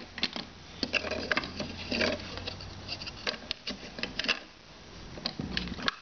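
Worn 45 rpm vinyl record playing on a turntable: irregular crackle and pops of surface noise stand out over a quiet stretch of the music.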